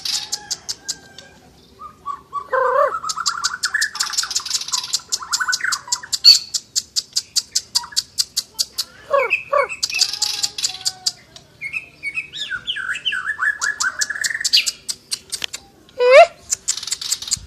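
A murai songbird singing vigorously in full song: runs of rapid, dry, high-pitched ticking rattles mixed with clear whistled phrases and quick down-slurred notes, in bursts separated by short pauses. A faint steady hum runs underneath.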